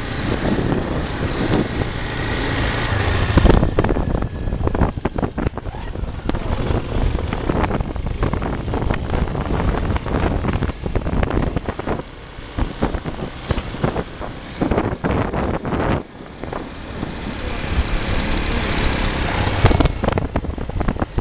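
Motorcycle engine running while riding along a rough dirt track, with wind rushing over the microphone and many short knocks from the ride. The sound changes abruptly a few seconds in and again about three quarters of the way through.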